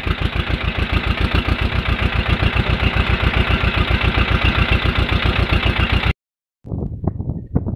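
Swaraj 724 FE tractor's diesel engine running at a steady low speed, an even fast chugging of about ten beats a second, which cuts off abruptly about six seconds in.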